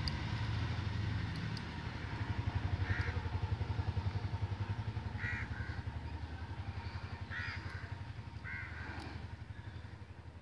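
Crows cawing, four single caws spaced a couple of seconds apart, over the steady low, pulsing throb of an engine running.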